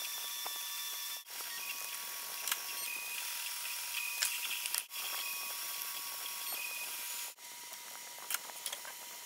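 MakerBot Replicator 2 3D printer running a print: a steady fan hiss with short whining tones from its stepper motors as the extruder head moves, breaking off briefly several times where takes are joined. Quieter near the end, with a few light clicks.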